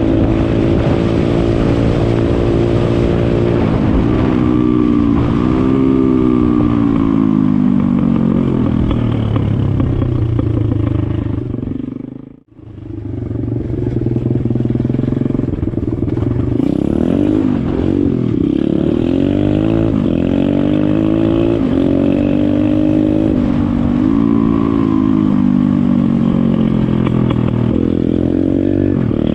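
Pit bike engine running, its revs rising and falling repeatedly, with a brief drop-out almost to silence about twelve seconds in.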